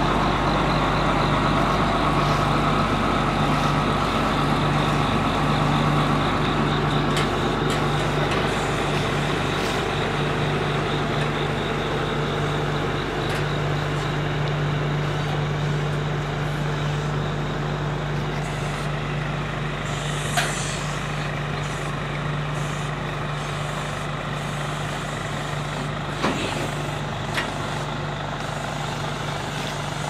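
A heavy engine idling steadily, with a short hiss about twenty seconds in and a few light knocks near the end.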